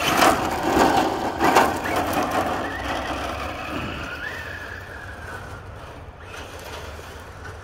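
Losi TEN-SCTE RC short course truck with a Leopard 2000KV brushless motor accelerating across a gravel driveway: tyres crunching and spraying gravel for the first couple of seconds, then a thin motor whine that fades as the truck drives away.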